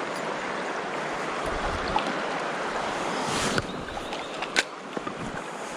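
River water running steadily over the streambed, heard as an even rush. A sharp click sounds about four and a half seconds in.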